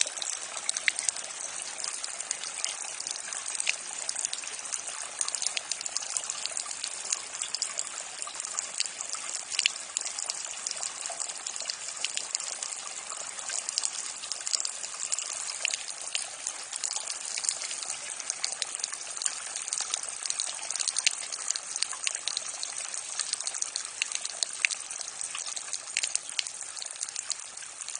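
Rainwater running out of a downspout after rain: a steady gushing splash with many small drips and splats scattered through it.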